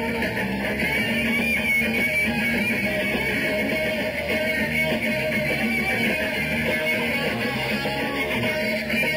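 Live rock band playing an instrumental jam, electric guitar to the fore over bass guitar.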